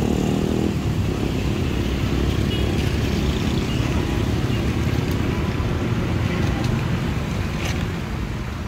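Steady rumble of motor vehicle engines running, fading away near the end.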